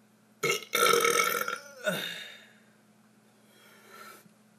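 A person burping deliberately: a brief burp, then one long loud burp lasting about a second, then a shorter burp that falls in pitch.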